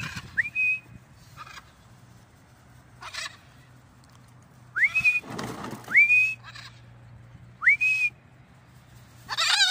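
Short clear whistles, each sliding up and then held briefly: a quick pair at the start and three more spread through the middle. Near the end a blue-and-gold macaw gives one loud, harsh squawk.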